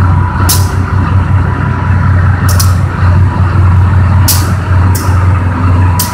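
Amtrak diesel locomotive engine running steadily close by: a loud, even low rumble, with short sharp hisses every second or two.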